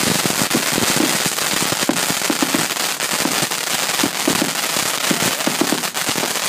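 Many firecrackers and fireworks going off at once: a dense, continuous crackle of sharp bangs, some louder than others.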